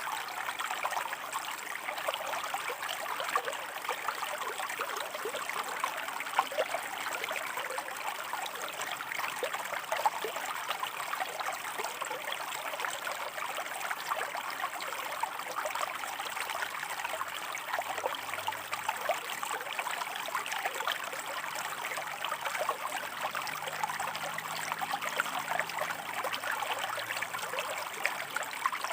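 A shallow stream running over rocks: a steady babble and trickle of water with many small splashes.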